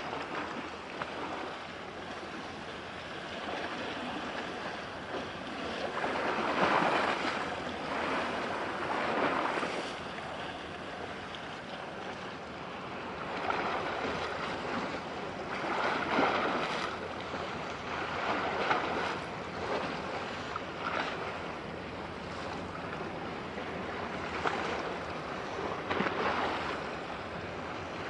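Sea water washing and splashing, with wind buffeting the microphone. The noise rises and falls in irregular surges every few seconds, with no engine tone standing out.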